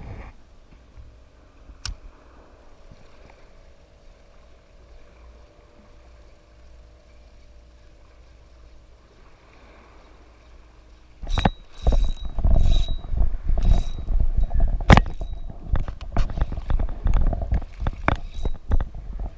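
Low wind rumble on the microphone with a single click, then, from about eleven seconds in, a run of loud irregular knocks, rubs and clicks as a freshly caught fish is landed and handled with the spinning rod and reel held close to the microphone.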